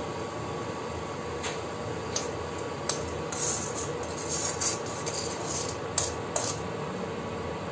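A spoon scraping and clicking against an iron kadai as a thin simmering paste is stirred, in a run of short sharp scrapes from about one and a half to six and a half seconds in. Under it a steady hum from the induction cooktop.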